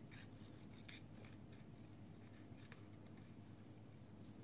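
Faint, irregular soft snips of scissors cutting a small circle out of a scrap of paper.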